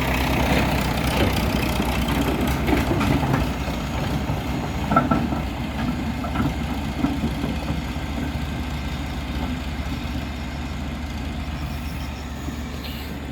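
Caterpillar 140H motor grader's diesel engine running steadily while grading the road, gradually getting quieter. A brief clank comes about five seconds in.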